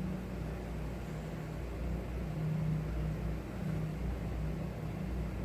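A steady low hum with a faint hiss, wavering slightly in strength.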